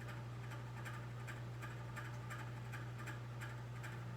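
Room tone: a steady low electrical hum with faint, regular ticking about three times a second.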